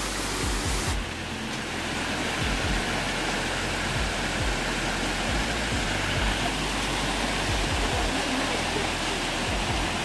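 Water rushing down a rocky waterfall and its cascades: a steady, dense rush of falling water, with background music underneath. About a second in the highest hiss drops away and the rush turns slightly duller.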